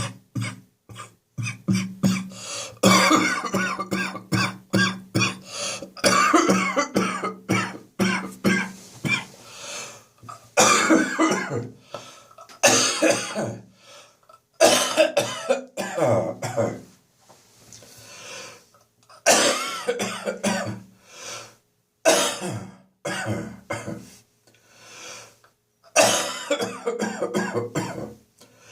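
A person's chesty cough lingering after bronchitis: a quick run of short coughs in the first few seconds, then repeated longer coughing bouts with short silent pauses between them.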